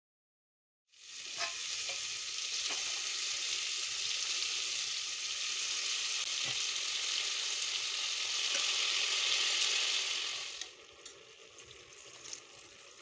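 Cauliflower and chana dal sizzling in hot oil in an aluminium pressure cooker, with a few sharp clicks of a steel spoon stirring against the pot. The sizzle starts about a second in and drops away suddenly near the end, leaving only faint clinks.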